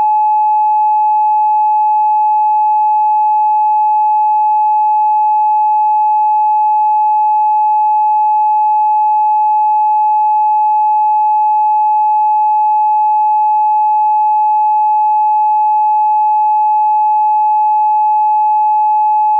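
Emergency Alert System attention tone: a loud, steady electronic alert tone pitched just under 1 kHz, held without any change in pitch or level.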